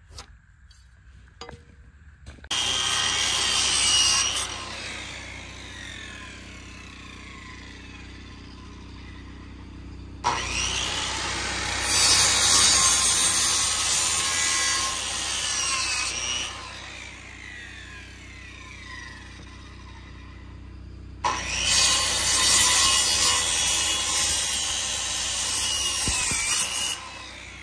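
Corded Metabo HPT circular saw crosscutting freshly sawn wooden boards: three loud stretches of blade cutting through wood, each a few seconds long, quieter between cuts. Faint scratching of pencil marking comes first.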